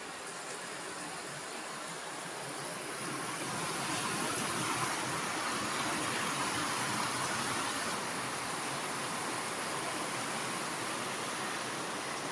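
Heavy rain falling steadily, a dense hiss that grows louder about three seconds in and then holds.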